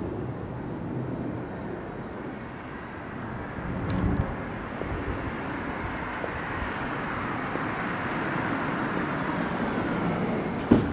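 Street noise swelling as a car comes up from behind and passes close by. There is a dull thud about four seconds in and a sharp knock near the end.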